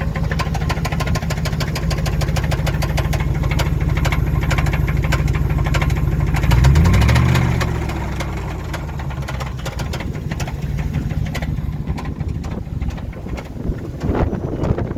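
Engine idling with a rapid, regular knock, revved once briefly about halfway through and dropping back to idle. It is rod knock, which the owner takes for one or two failed connecting rods after too many rev-limiter burnouts.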